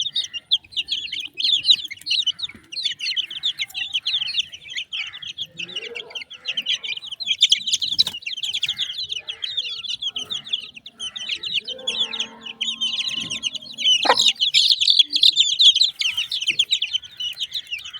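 A brood of chicks peeping continuously, many high rapid cheeps overlapping, with an Aseel hen clucking low now and then among them.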